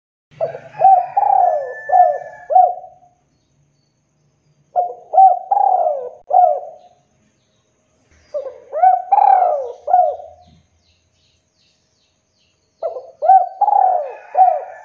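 Spotted dove cooing: four phrases, each a run of several quick notes lasting about two seconds, coming about every four seconds.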